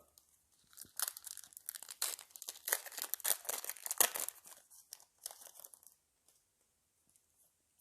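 Crinkling and tearing of a foil trading-card booster pack wrapper being handled and opened: irregular sharp crackles from about a second in that stop about six seconds in.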